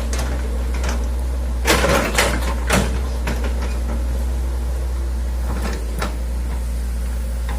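Hitachi excavator's diesel engine running steadily, with a cluster of sharp knocks and scrapes about two seconds in and a lighter knock near the end, typical of the digging bucket and linkage working.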